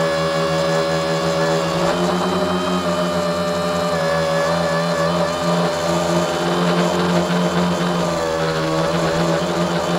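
Tricopter's three brushless motors and propellers whining steadily in a hover, recorded from on board; the pitch shifts up and down slightly a few times as the throttle is adjusted.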